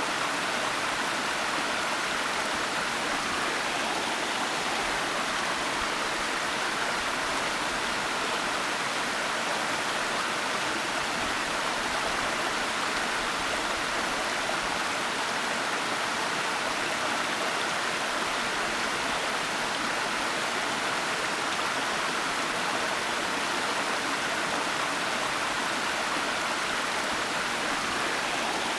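Waterfall: water falling and rushing in a steady, even hiss with no breaks or changes.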